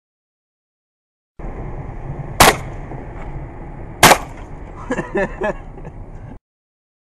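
Two shotgun shots about a second and a half apart, fired from inside a car through the open side window, over a steady low rumble in the car.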